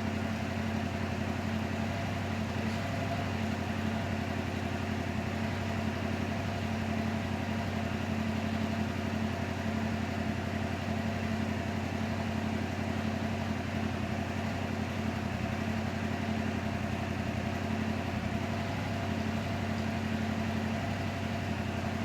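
2022 Yamaha R7's 689 cc parallel-twin engine idling steadily.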